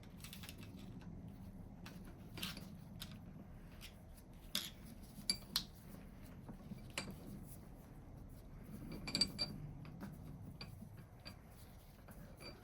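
Scattered light metal clinks and clicks of a spanner and bench vise parts being handled, a dozen or so irregular taps with a faint steady hum underneath.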